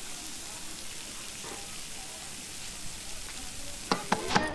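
Food frying in a large metal kadhai, a steady sizzling hiss. A few sharp knocks near the end.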